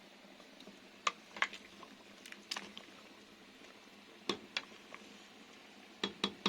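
Kitchen clatter while cooking: a handful of short, sharp clicks and knocks from utensils and cookware being handled, coming in irregular pairs over a faint steady hiss.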